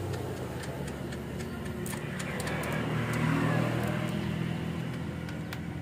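A motor vehicle's engine running nearby, growing louder to a peak about three seconds in and then fading. Faint sharp clicks come through it as the chainsaw's chain and bar are handled.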